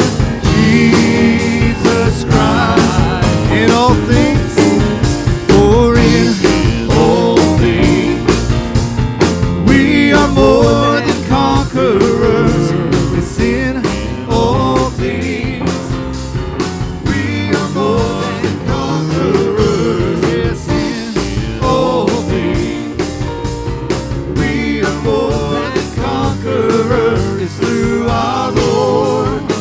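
Praise band playing an upbeat worship song with a steady beat and a wavering melodic lead line.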